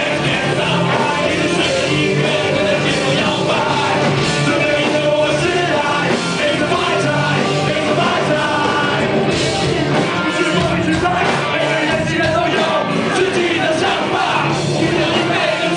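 Live punk rock band playing loudly with a lead vocal, and the audience singing and shouting along.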